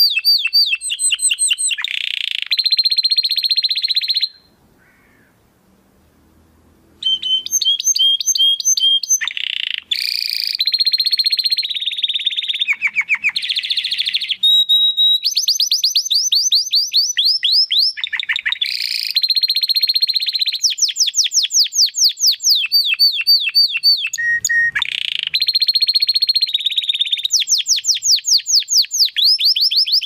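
Domestic canary singing vigorously: long strings of fast, rapidly repeated trilled notes, switching from one trill pattern to the next every second or two. About four seconds in the song breaks off for nearly three seconds, then runs on without pause.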